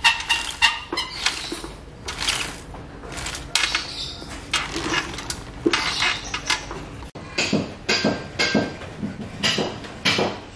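Irregular metallic clinks and clicks of hand tools working on a motorcycle chain-adjuster bolt. After a sudden break about seven seconds in, the strikes come more evenly spaced.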